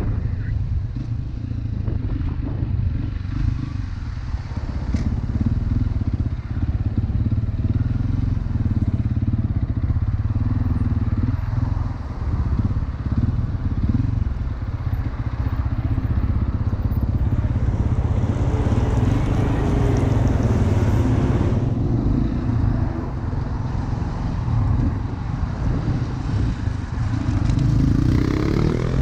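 Motorcycle engine running on the move, with wind noise on the microphone. Near the end the engine revs up, its pitch rising.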